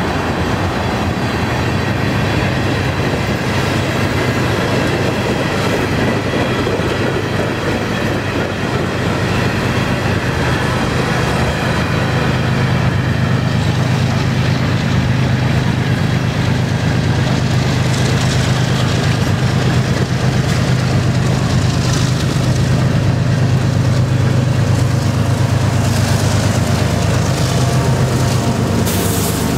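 Freight train of tank cars rolling slowly past, wheels clicking over the rail joints. A low diesel drone from the distributed-power locomotive builds through the second half, is loudest as the unit passes near the end, then drops off.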